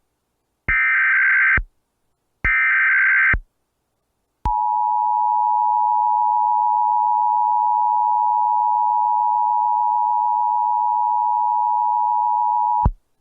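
Emergency Alert System SAME header: two rapid digital data bursts, each about a second long with a short gap between, encoding a Required Monthly Test. A second later comes the EAS two-tone attention signal, a steady pair of tones held for about eight seconds, which cuts off near the end.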